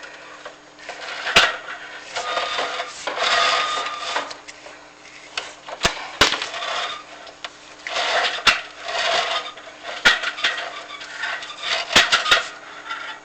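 Chimney inspection camera scraping and knocking against the walls of a 13x13 flue liner as it is lowered down the flue, with patches of scraping and sharp clicks every second or two.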